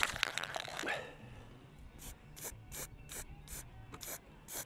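A brief clatter of small metal parts, then an aerosol spray can being shaken, its mixing ball rattling in a steady rhythm of about two or three strokes a second.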